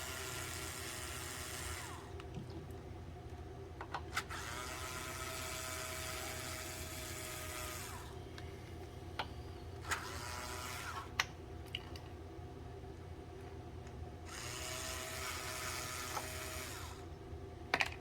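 Power drill running in four separate runs of a few seconds each, its whine rising in pitch as it spins up each time, over a steady low hum.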